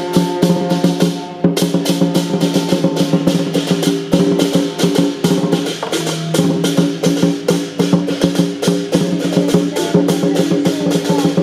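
Taiwanese temple procession percussion: a large barrel drum and hand cymbals struck in a fast, steady beat, with a melody of long held notes playing over it.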